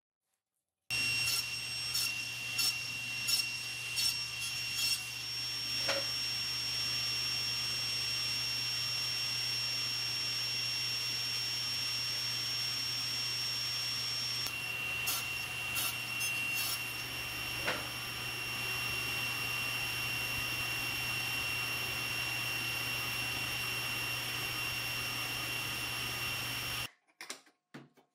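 Table saw running with a steady high-pitched whine over a low hum, with a cluster of short sharp knocks in the first few seconds and another about halfway through, as small 45° pieces are crosscut on the sled. The sound cuts off abruptly about a second before the end.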